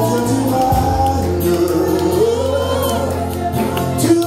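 Live gospel praise music: singers over a band, with a steady held bass note and sliding vocal lines.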